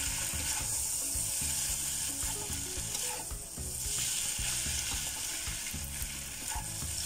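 Kwetiau noodles and vegetables sizzling in a stainless steel wok, stirred and tossed with a spatula that scrapes and knocks against the pan in short irregular strokes over a steady frying hiss.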